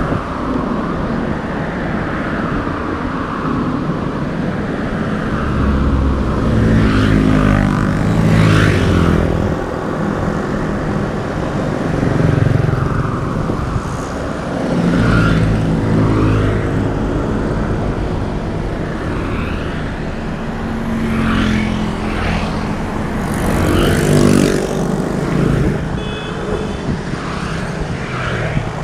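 Busy road traffic: a steady stream of motorcycles and other vehicles passing close by, engines swelling and fading as each one goes past. A short high beep sounds near the end.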